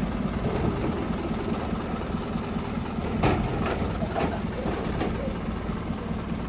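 Engine of a septic pumping truck running steadily just after starting up, a low rumble with a couple of short clicks or knocks about three and four seconds in.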